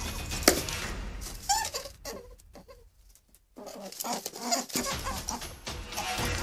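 Rabbit calls played as an animal sound effect: a few short calls of changing pitch, broken by a near-silent pause of about a second and a half midway.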